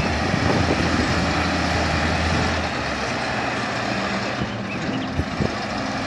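Tatra dump truck's diesel engine running as the truck drives and tilts across an uneven gravel slope; a steady drone whose note changes about halfway through, over a steady hiss.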